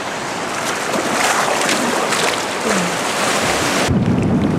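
Sea water splashing and sloshing as a man swims in small waves. About four seconds in the sound cuts abruptly to a low rumble of wind on the microphone.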